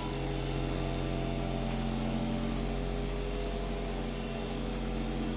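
Steady electric hum of a small machine running, with several held tones and no change in speed.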